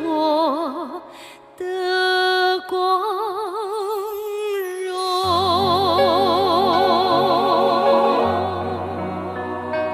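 Female singer holding long notes with a wide, even vibrato over orchestral accompaniment, in a Chinese patriotic song. Low bass notes enter about five seconds in.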